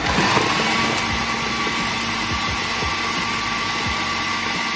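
Electric food processor running at speed, its blade chopping onions and green chillies in the plastic bowl: a steady motor whine over a dense chopping noise.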